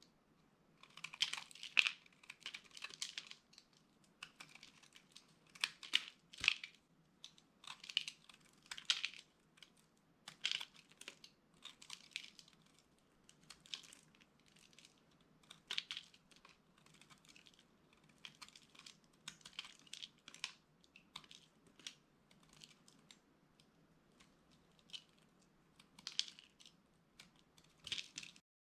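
Dry soap being crushed, giving crisp, crackling crunches in irregular bursts every second or so.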